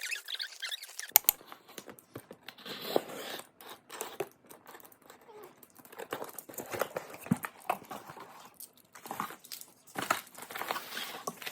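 Plastic packaging crinkling and rustling as items are handled, with irregular small clicks and taps.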